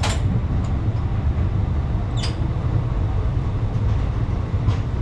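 Passenger train coach rolling along, heard at its open doorway: a steady low rumble with three brief sharp clicks or squeaks.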